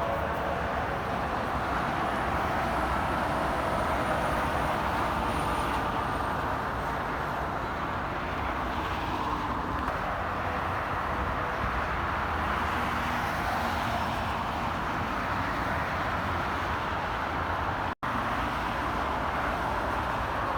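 Steady roar of interstate highway traffic as vehicles pass, with a split-second dropout near the end.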